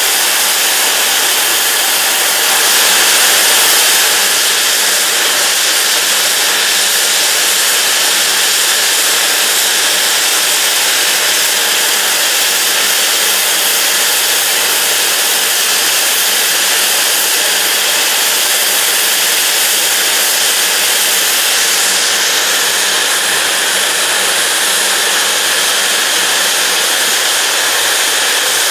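Standing steam locomotive blowing off steam at its safety valves: a loud, steady hiss that hardly changes.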